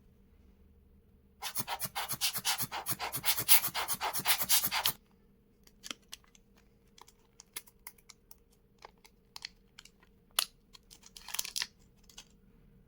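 Close-up handling of a camera cleaning kit and its packaging: a rapid run of scratching, rubbing strokes lasting about three and a half seconds, then scattered light clicks and taps.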